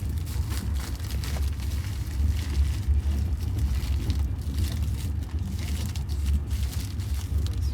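Steady low rumble of a moving passenger train heard inside the carriage, with light irregular rattling over it.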